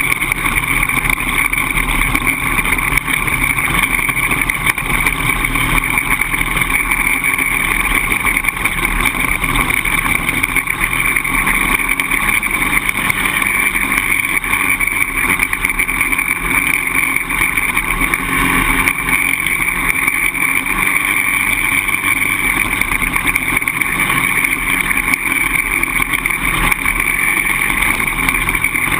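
Polaris Outlaw 525 quad's single-cylinder four-stroke engine running steadily under way, with no sharp revving.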